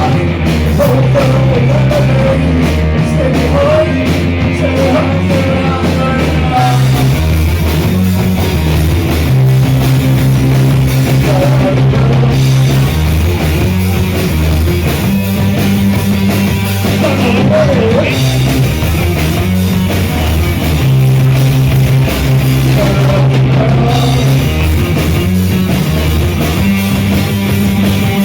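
Rock music played live by a band, with singing over a steady bass line.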